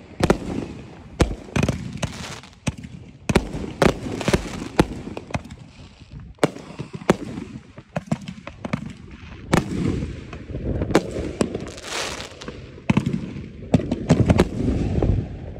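Aerial fireworks launching and bursting overhead: an irregular run of sharp bangs, several a second at times, with crackling and a low rumble between them.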